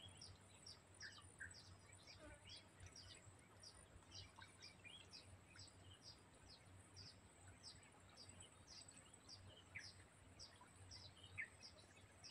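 Near silence with faint, high chirps repeated evenly, about two or three a second, from a small bird, over a thin steady high hum.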